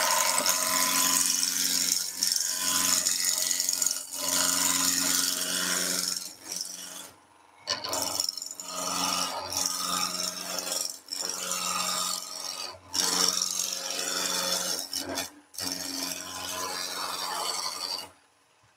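A turning tool cutting a long wooden spindle spinning on a wood lathe: a run of scraping cutting passes with short pauses between them, over the lathe's steady hum.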